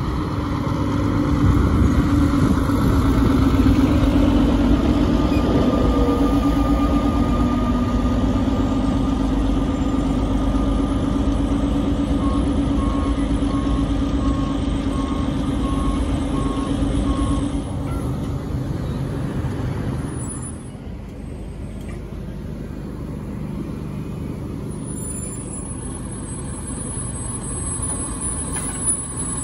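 Fire trucks driving slowly past with engines running, together with a long steady tone that drifts slightly lower and stops about two-thirds of the way through. The sound is quieter afterwards.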